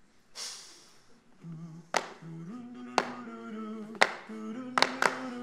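A cappella male voices singing a low bass line in held, stepping notes, with sharp snaps keeping time about once a second. A short breathy hiss comes just before the singing starts.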